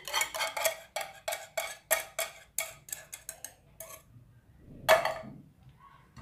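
A spoon clinking rapidly against the rim of a pot or glass dessert cup, about three to four taps a second, as the caramel cream is spooned out; the taps fade out partway through, followed by one louder knock about five seconds in.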